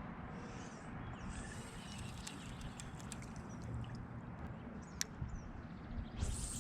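Outdoor sound from a fishing kayak on a lake: a steady low rumble and hiss with a few faint clicks, a sharp click about five seconds in, and a brief swish near the end.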